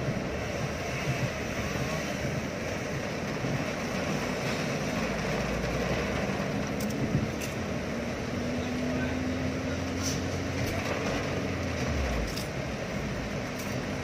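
Heavy rain pouring on a car and its windscreen, heard from inside the cabin, with the wipers sweeping and the low hum of the car and the traffic around it. A few sharp clicks come through the steady wash of rain.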